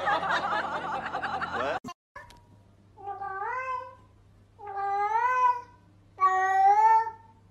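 A wobbling laughter sound effect ends about two seconds in. Then a black-and-white cat meows three times, each meow drawn out, rising in pitch, and louder than the one before.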